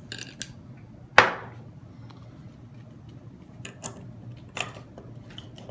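Small metal internal hub-gear parts clicking and knocking as they are handled and fitted: one sharp clink about a second in, then a few light clicks.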